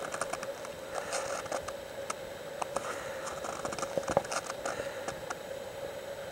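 Snowshoes crunching and squeaking on dry, very cold snow at a walking pace, heard as a string of irregular crackles.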